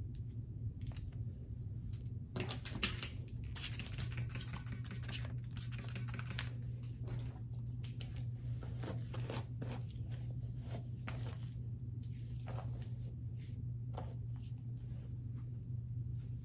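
Irregular rustling and soft clicks from a wig's hair being wet with water and leave-in conditioner and worked by hand, densest a few seconds in, over a steady low hum.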